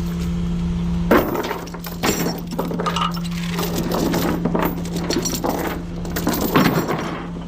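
Steel tie-down chain clanking and clinking as it is handled, with a string of sharp metal knocks, the loudest about a second in and near the end, over a steady low hum.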